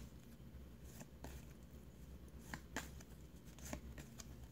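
Trading cards being flipped through by hand, with a few faint soft clicks and slides as cards are moved around the stack, over a low steady hum.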